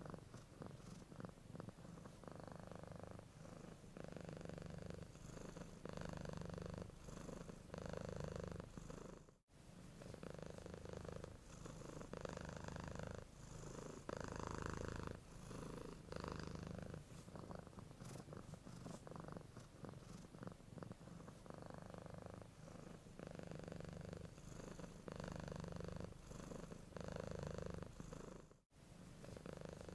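Domestic cat purring steadily, the purr swelling and fading in a regular rhythm about once a second. It cuts out suddenly for a moment twice, about a third of the way in and near the end.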